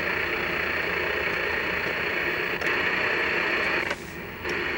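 Steady hiss of static from a vintage Sears Toshiba tube TV's speaker while it is not yet tuned to the pattern generator's channel. The hiss drops briefly about four seconds in.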